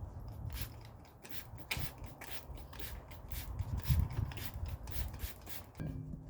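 Tire and wheel rubbing and scraping against a manual tire changer as the wheel is set up on it, a run of irregular scrapes.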